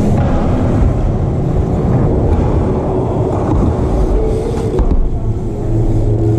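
BMX bikes rolling over plywood skatepark ramps: a steady loud rumble of tyres on wood, with wind noise on a moving camera's microphone.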